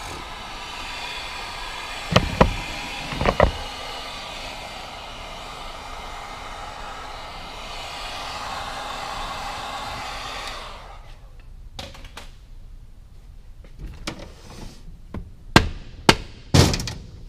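Heat gun blowing steadily to heat the transmission parts, with two sharp knocks about two and three and a half seconds in. It switches off about ten seconds in, and a run of metallic clicks and taps follows, coming quicker near the end.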